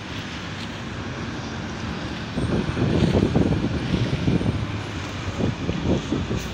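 Street traffic passing, then a Freightliner semi-tractor hauling a container trailer drives close by: its diesel engine rumbles loudly and unevenly from about two seconds in, easing off near the end, over steady tyre and road noise.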